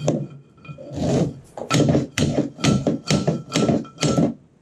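Quick series of metal taps, about three a second with a short ringing note, as a rear roller is knocked loose along the gearbox drive shaft of a Honda rear roller mower.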